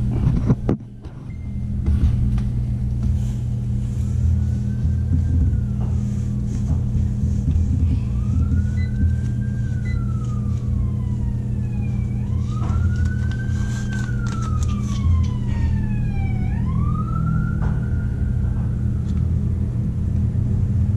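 Emergency-vehicle siren wailing, its pitch rising and falling slowly about every four seconds. It is faint at first and plainer from about eight seconds in, over a steady low hum.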